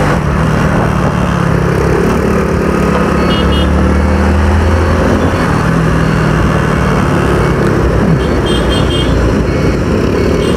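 Motorcycle engine running at low road speed in traffic, heard from the rider's seat with steady wind and road noise over it. A few short high beeps sound about three seconds in and again near the end.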